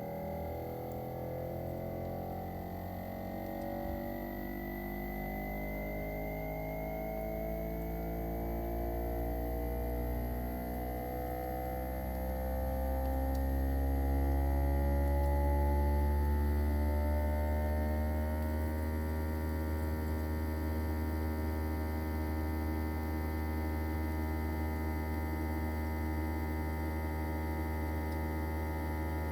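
Inverter-driven swing rotary compressor of a Daikin ARN22HS outdoor unit speeding up: a humming whine that climbs steadily in pitch and levels off to a steady tone about 18 seconds in.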